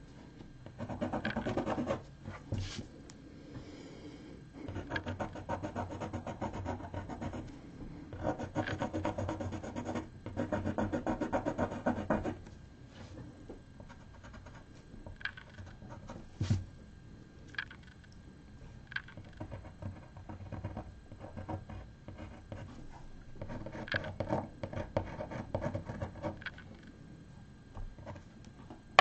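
Graphite pencil scratching across drawing paper in bursts of quick, short back-and-forth strokes. A few light knocks fall in the quieter stretch between bursts.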